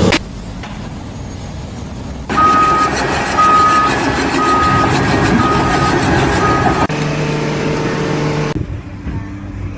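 Backup alarm on a heavy construction vehicle, beeping five times at about one beep a second over the engine's noise. Near the end the sound changes abruptly to a steady low machine hum.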